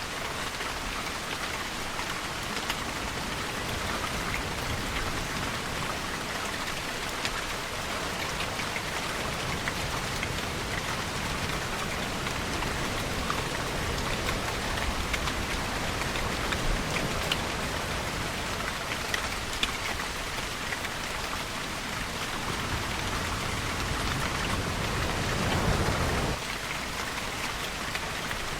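Steady rain falling, with scattered drops ticking on a surface. Near the end a low rushing swell builds and then stops suddenly.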